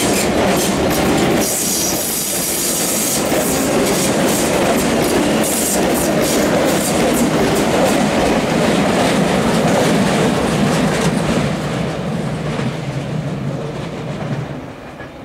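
Sotetsu electric commuter train running close by at speed: a steady rumble of wheels on rail with repeated clicks as the wheels cross rail joints. The noise tapers off near the end.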